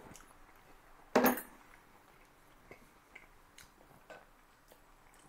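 A fork clinks sharply against a plate about a second in, with a brief ring. A few faint small clicks and knocks of tableware follow.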